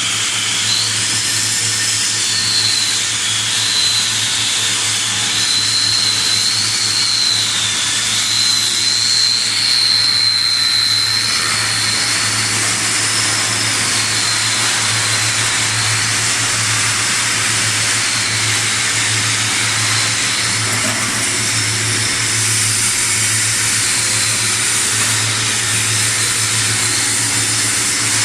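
Submerged arc welding rig running: a steady machine noise with a constant low hum and a high whine that wavers up and down in pitch through roughly the first dozen seconds.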